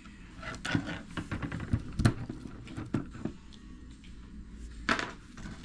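Small parts and tools being handled on a workbench: scattered light clicks and knocks, with a sharper knock about two seconds in and a brief rustle near the end.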